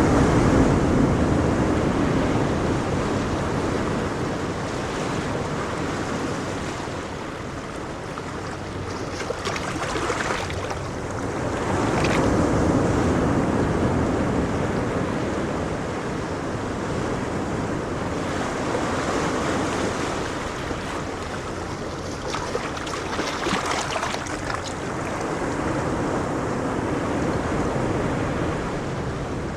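Ocean surf: waves breaking and washing up a beach, swelling and easing every several seconds, with some wind on the microphone.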